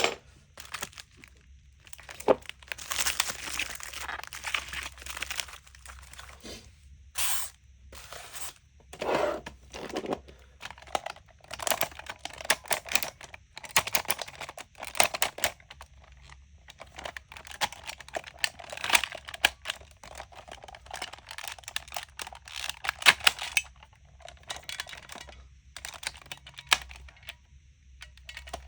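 Irregular crinkling and rustling with many small clicks and taps.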